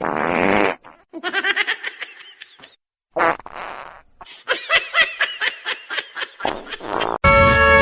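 A person laughing in several bursts of rapid pitched pulses, after a short rasping noise at the start. A loud, steady horn-like blare cuts in near the end.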